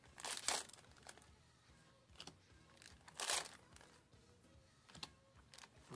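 Foil trading-card booster pack wrappers being torn open and crinkled: two tearing bursts about three seconds apart, with small clicks between.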